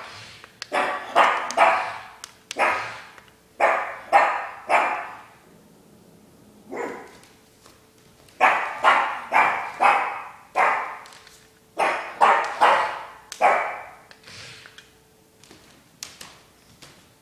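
A pug barking again and again in quick runs of three to six sharp barks with short pauses between, the barks getting fainter over the last few seconds.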